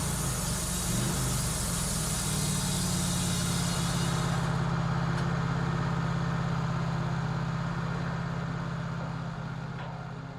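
Wood-Mizer portable band sawmill running steadily as it takes the first slab cut off a log, a high hiss riding over the engine. The hiss drops away about four and a half seconds in while the engine keeps running, and the sound eases down near the end.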